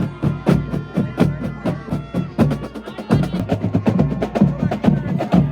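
Marching band drumline playing a fast cadence: a quick, steady run of drum strikes on pitched drums and bass drum, with no melody.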